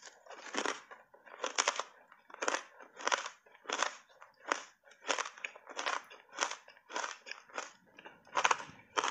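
Close-miked chewing of hard ice chips coated in matcha powder: a steady run of sharp crunches, about three every two seconds.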